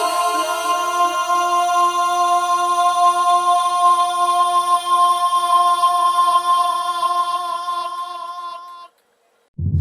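Intro music: a held, sustained synthesized chord that fades out and cuts to a brief silence. Louder music comes in just before the end.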